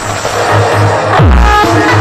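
Loud electronic dance music on a mobile disco sound system, with a pulsing bass beat. About a second in, a falling pitch sweep drops into a deep bass hit.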